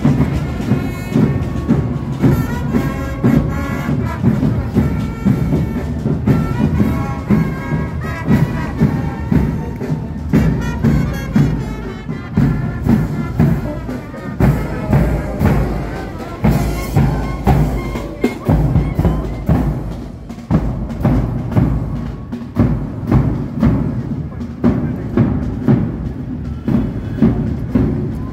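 A marching brass band with tubas and euphoniums playing a march over a steady drum beat, about one beat a second.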